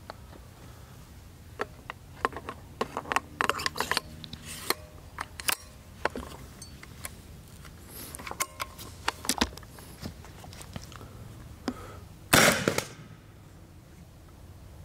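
Clicks and clatter of a 37 mm launcher being handled and front-loaded with a 3D-printed projectile, then a single shot from the launcher about twelve seconds in, the loudest sound.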